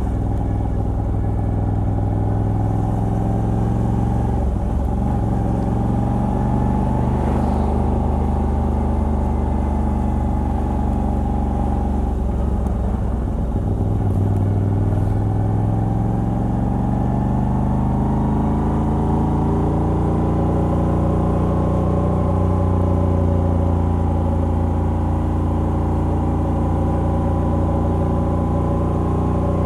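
Moto Guzzi V85TT's air-cooled transverse V-twin, on its stock exhaust with a decat pipe, running under way on the road. The engine note breaks briefly about four seconds in and again around thirteen seconds, then rises slowly in pitch through the second half and holds there.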